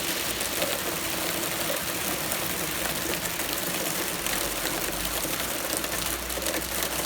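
Steady rain shower, an even hiss of falling rain. A low rumble comes up under it about four seconds in.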